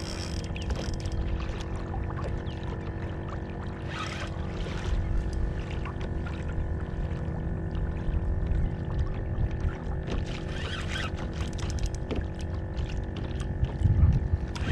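Water sloshing and splashing against a kayak's hull as a hooked lemon shark tows the kayak, over a steady low rumble, with louder splashy surges about four seconds in and again around ten seconds.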